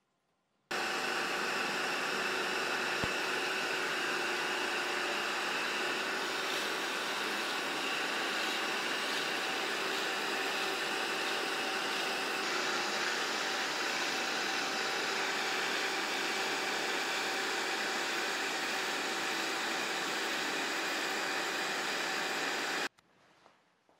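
Power tool with dust extraction running steadily while its bit bores a row of holes in a plywood strip: an even, loud machine noise that cuts in just under a second in and cuts off abruptly about a second before the end.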